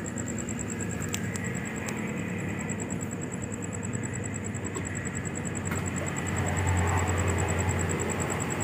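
Heavy diesel truck running as it creeps past close by in slow traffic, a steady low engine rumble that grows louder about six seconds in.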